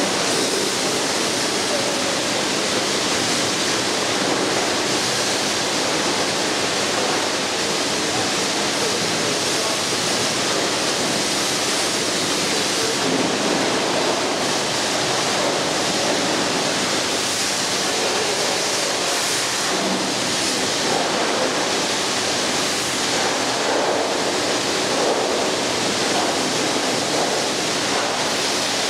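Pressure washer spraying water, a steady hiss that holds at one level without breaks.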